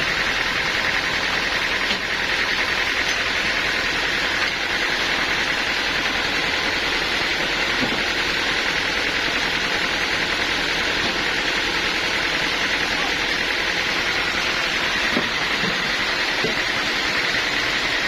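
Sawmill machinery running steadily: a continuous, even mechanical noise with a strong hiss in the upper-middle range and a few faint ticks.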